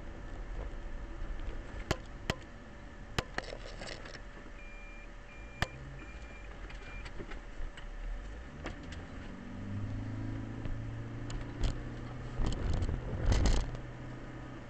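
Car driving, heard from inside: steady road noise with several sharp clicks and four short high beeps in the first half, then the engine pitch rising as the car speeds up, and a loud rush near the end.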